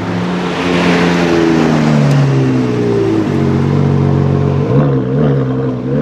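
Ferrari 812 Competizione Aperta's V12 engine running at low revs. Its pitch sags slowly and drops about three seconds in, then wavers with small rev blips near the end.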